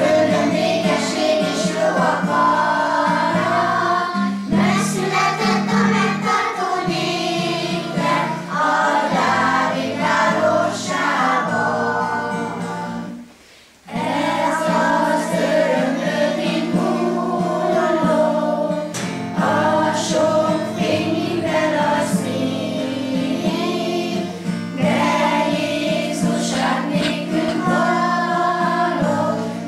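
A children's choir singing a song together, with a short break about halfway through before the singing starts again.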